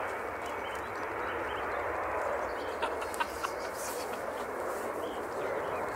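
Jet engines of a twin-engine Airbus A320-family airliner at take-off power just after lift-off, a steady rushing roar that slowly eases as the aircraft climbs away.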